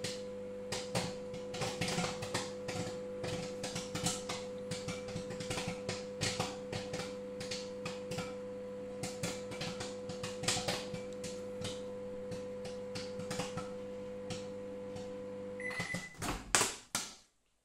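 Microwave popcorn popping in its paper bag inside a running De'Longhi microwave oven: a steady hum under irregular sharp pops, the last kernels going off at the end of cooking. Near the end the oven stops, beeps briefly, and its door is clicked open.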